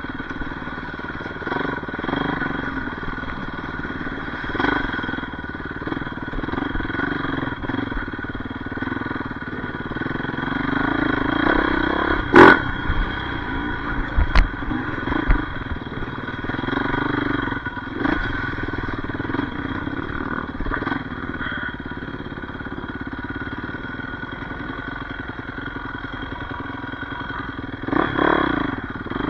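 Yamaha YZ450F dirt bike's single-cylinder four-stroke engine revving up and down as it is ridden, with a sharp knock about twelve seconds in and a few smaller clicks soon after.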